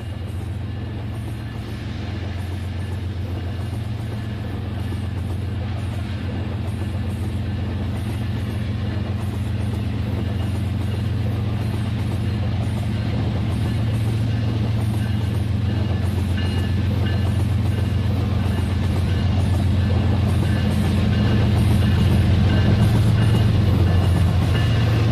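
Battery-powered toy train set running on its track: a steady motor hum that slowly grows louder.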